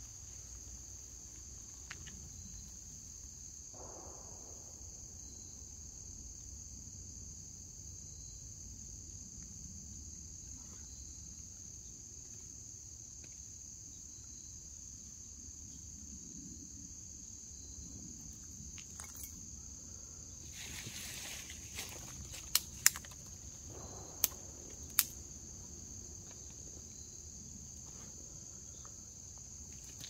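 Insects chirring in a steady, high-pitched chorus. A rustle and a few sharp snaps come about two-thirds of the way in.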